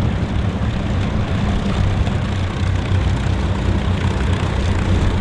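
Avro Lancaster's four Rolls-Royce Merlin V12 engines running steadily as the bomber taxis forward, a loud, even sound heaviest in the low end.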